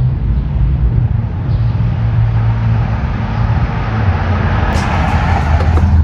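A motor vehicle engine running with a steady low hum, growing louder over the last couple of seconds.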